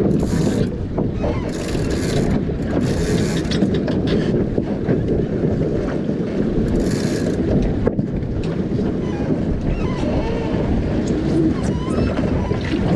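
Wind buffeting the microphone over the steady rush of water along a sailing dinghy's hull under way, with a few brief surges of hiss.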